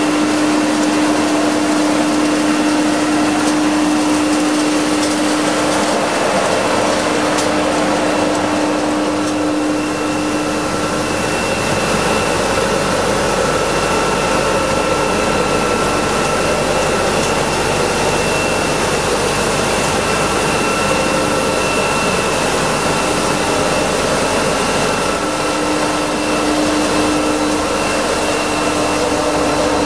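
Scarab Merlin XP truck-mounted vacuum road sweeper at work: its suction fan and sweeping gear give a loud, steady rushing roar. A steady hum runs through it and drops away for a stretch in the middle.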